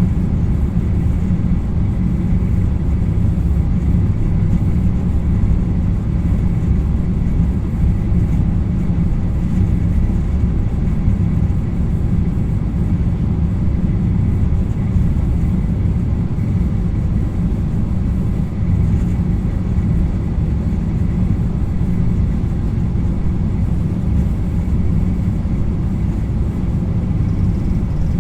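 Steady electric motor hum in a workshop interior: a heavy low rumble with faint thin, steady tones higher up.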